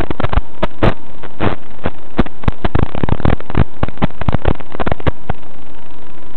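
Audio from a micro quadcopter's analog FPV video link: a loud, steady noise with a faint steady whine, broken by a rapid, irregular run of sharp clicks and crackles that is densest about three seconds in and stops after about five seconds.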